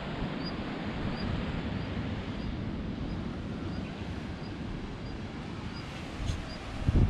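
Wind buffeting the microphone as a steady low rumbling hiss, with a short high chirp from a small animal repeating about every two-thirds of a second above it.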